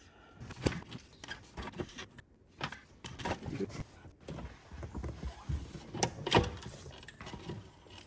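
Irregular clicks, taps and knocks of fuel injectors and the fuel rail being handled and worked into their seats in the intake, the loudest knock about six seconds in.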